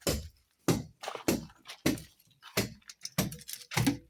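Footsteps: about seven even steps, a little over half a second apart.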